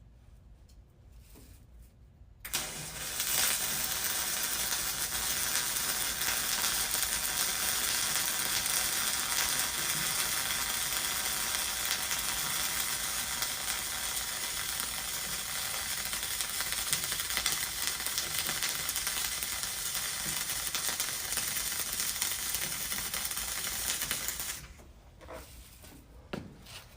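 Flux-cored arc welding: the arc strikes about two and a half seconds in and burns with a steady, even noise for about twenty-two seconds before it is broken.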